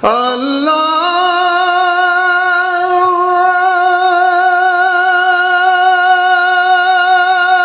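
A man's voice holding one long high sung note, unaccompanied: it slides up over the first second, then holds steady with a slight vibrato.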